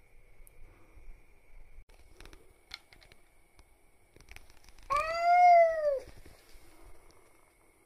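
A domestic cat's single meow, about a second long, rising and then falling in pitch, about five seconds in. Before it come a few faint clicks and scuffs.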